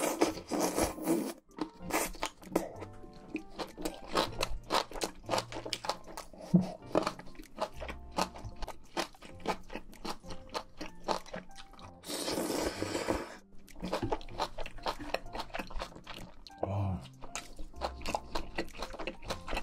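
Close-miked eating sounds: chewing with many crisp crunches, and two longer breathy bursts, one at the start and one about twelve seconds in. Soft background music plays underneath.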